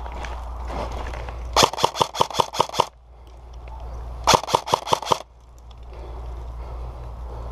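Airsoft gun firing two rapid strings of shots, about seven a second: about nine shots, then about six more a second and a half later.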